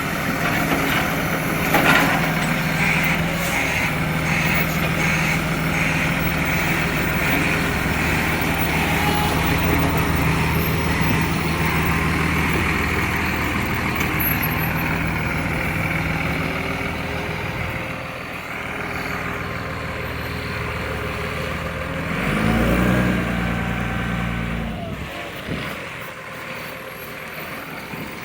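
Recycling garbage truck's diesel engine running, with the leaky exhaust that the truck is known for. A brief louder low surge comes a little over twenty seconds in, and the engine sound drops away near the end.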